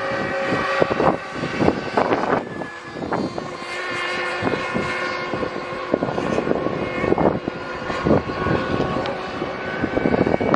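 Small internal-combustion engine of a fast radio-controlled model boat running flat out on a lake, a steady high-pitched buzz.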